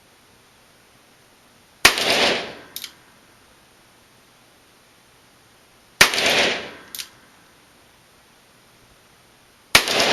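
Smith & Wesson .38 handgun fired three times, about four seconds apart. Each shot is a sharp crack with a short ringing tail, and a fainter crack follows about a second after each of the first two.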